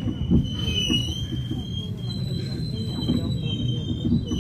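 Busan Metro Line 1 train slowing to a stop at a station: a low rumble of wheels on rail with irregular knocks, easing as the train slows, under several thin, steady high-pitched squealing tones.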